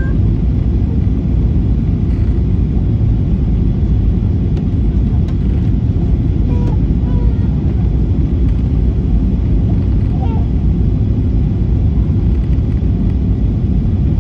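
Steady low cabin noise inside a Boeing 737-800 descending on approach: engine and airflow noise heard from a window seat over the wing, even in level throughout.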